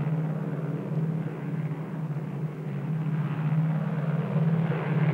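Steady low drone of a Catalina PBY flying boat's twin radial piston engines in flight, with a slight pulsing beat.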